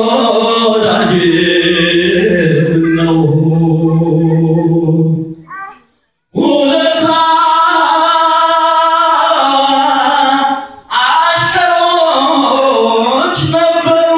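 A church choir singing a mezmur, an Ethiopian Orthodox hymn, in sustained sung phrases. The singing breaks off for a moment about six seconds in, then picks up again.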